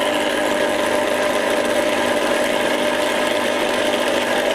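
Electric ice cream maker's motor, just switched on, running steadily as it turns the paddle through the ice cream base in the freezer bowl.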